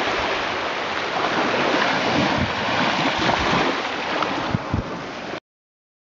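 Small sea waves washing up on a sandy shore, with wind rumbling on the microphone. The sound cuts off abruptly near the end.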